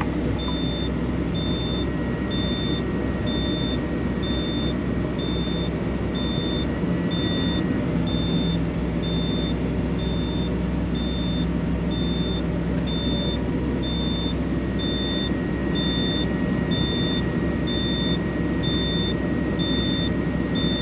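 Excavator engine running steadily, heard from inside the cab, with an electronic warning beeper sounding evenly, a little more than once a second.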